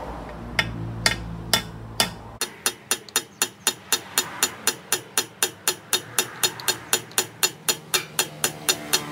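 Rapid, evenly spaced metal-on-metal taps, about three or four a second, driving a steel pin into the relocated oil hole of an aluminium motorcycle crankcase. A low machine hum under the first few taps stops about two seconds in.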